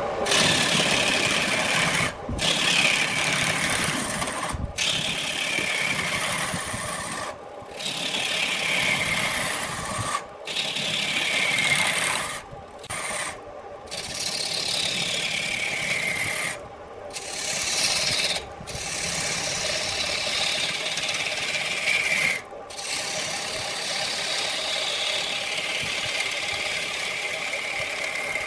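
Wood being cut on a lathe: a turning tool scraping the spinning workpiece in repeated passes, each pass a hiss that falls in pitch over a second or two. The passes are broken by about nine brief pauses.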